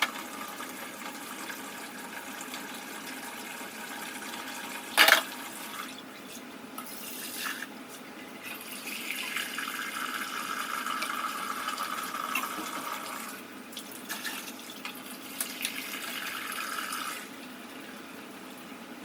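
Water running from a tap into a sink, its rush swelling and easing. There is one sharp knock about five seconds in.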